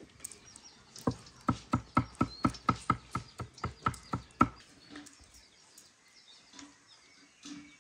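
Large kitchen knife chopping nuts on a wooden cutting board: a run of about fourteen quick strikes, roughly four a second, starting about a second in and stopping near the middle. Birds chirp faintly.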